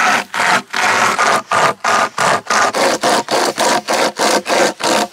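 Hand saw cutting through a wooden log, in steady back-and-forth strokes at about three a second.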